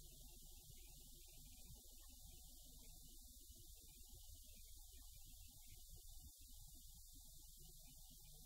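Near silence: a faint steady low rumble with hiss.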